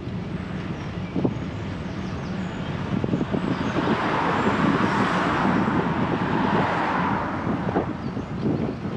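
A car passing by: its road noise rises from about a third of the way in, peaks in the middle and fades over about four seconds, over a steady low rumble.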